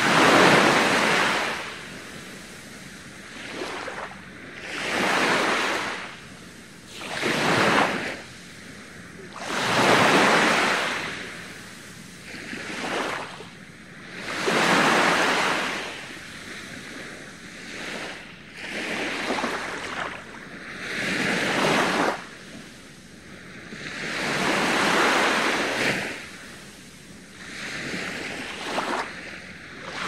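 Small waves breaking gently on a sandy beach and washing up the shore, a fresh wash of surf every two to three seconds, some louder than others.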